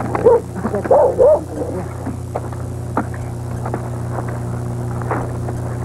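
A few short yelping calls in the first second and a half, then scattered light knocks, over a steady low hum.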